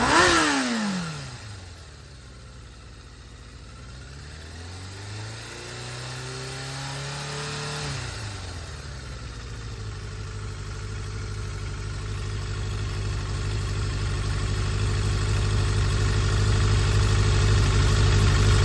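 Suzuki GSX400S Katana (GK77A) inline-four motorcycle engine running on a start-up test. A quick blip of the throttle falls away at the start; the revs then climb slowly for a few seconds and drop back about eight seconds in; after that it idles steadily, getting louder toward the end. The seller describes it as free of abnormal noise and in top condition.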